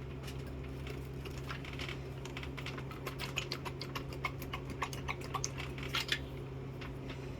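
Small metal transmission valve-body parts and bolts clicking and clinking against each other and the bench as they are handled. The clicks come in a quick irregular run, thickest in the second half, over a steady low hum.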